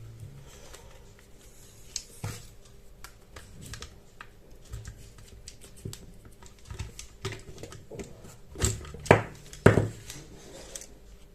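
Irregular small clicks and taps of an extension board's plastic casing and parts being handled and taken apart, with a few louder knocks near the end.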